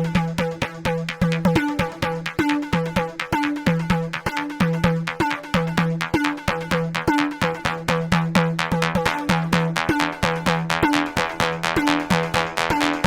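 Electronic background music with a steady drum-machine beat and repeating synth notes.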